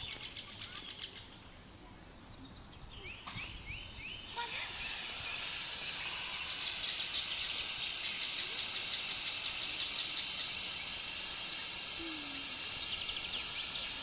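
Birds chirping faintly, then about four seconds in food starts sizzling loudly in hot oil, a steady high-pitched hiss that carries on.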